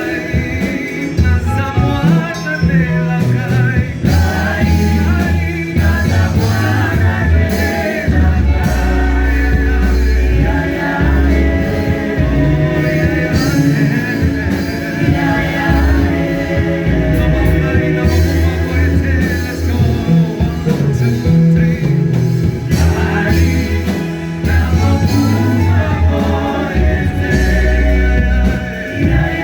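Gospel worship music with singing over a heavy bass and drum backing.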